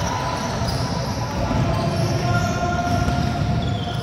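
Basketball game on a hardwood court in a large hall: players running, with ball bounces and short squeaks that come and go.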